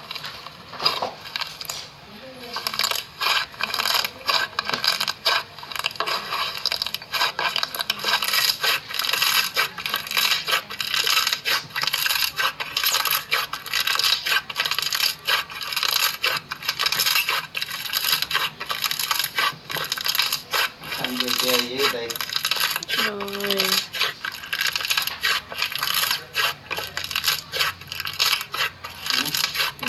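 Slime being squeezed and pressed by hand, making a dense, continuous run of sharp crackling clicks and pops.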